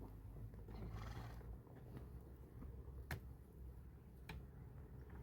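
Two sharp knocks, the first and louder about three seconds in and the second about a second later, over a low steady rumble, with a brief rustle about a second in.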